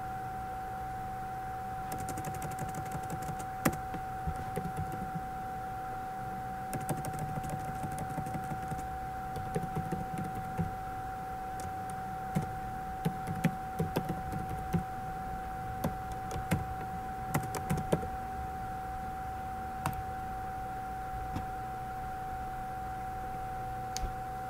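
Typing on a computer keyboard in two short bursts, then single mouse clicks scattered through, over a steady high-pitched electrical hum.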